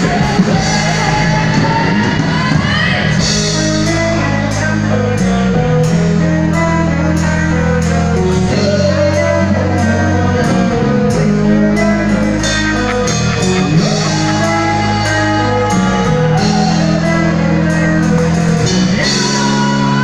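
Live rock band playing loud: electric guitars and bass holding chords that change every second or two over a drum kit with steady cymbal hits.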